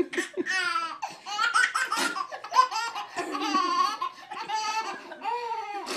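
A baby laughing in a string of short, high-pitched bursts.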